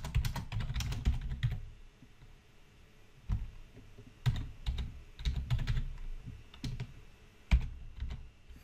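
Typing on a computer keyboard: irregular bursts of keystrokes, with a pause of about a second early on before the typing picks up again.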